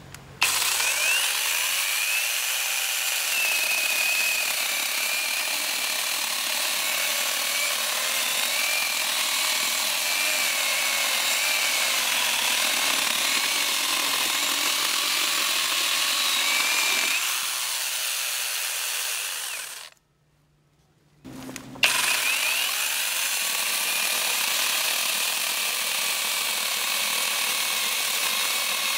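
Akaido cordless brushless angle grinder driving a chainsaw attachment, its chain cutting through a log: a steady high-pitched motor whine. It stops about twenty seconds in and starts again a second or two later, spinning up.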